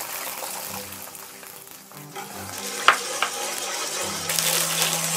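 Water sizzling and bubbling as it hits hot oil with ginger and scallion in a wok, the sizzle growing louder near the end, with a single sharp clink about three seconds in. Soft background music plays underneath.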